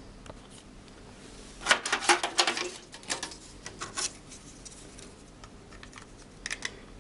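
Hands picking up and handling an IDE ribbon cable connector and a metal-bracketed SD-to-IDE adapter: a quick flurry of plastic-and-metal clicks and clatter about two seconds in, a few more clicks over the next two seconds, and a brief double click near the end.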